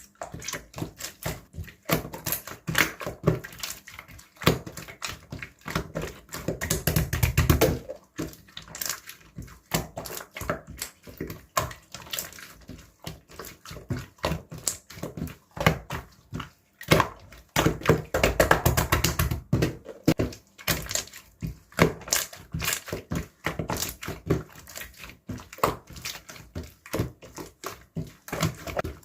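Slime being squished and poked by hand, making rapid wet clicks and pops, with two longer, louder squishing stretches about 7 and 18 seconds in.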